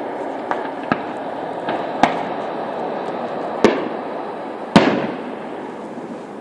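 Fireworks shells bursting in the sky: five sharp bangs, the loudest about three-quarters of the way through, each followed by a short rolling echo, over a steady background noise.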